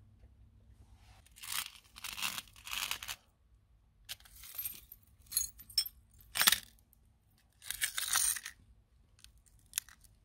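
Shattered phone glass and debris crackling and scraping on paving stones as they are handled, in several short bursts, with one sharp clack in the middle as a cracked iPhone is set down on the stone.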